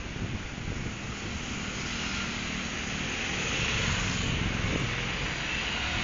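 Road traffic passing on a bridge: a steady rushing noise that grows louder over the first few seconds.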